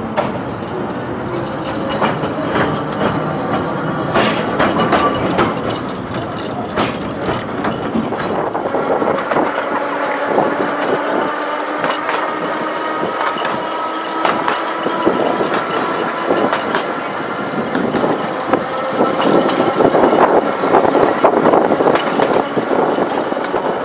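Seaton Tramway's narrow-gauge electric tram running along its track, heard from the open top deck: a steady rumble with frequent clicks of the wheels over the rails. From about nine seconds in, a thin whine rises slowly in pitch, and the running is loudest near the end.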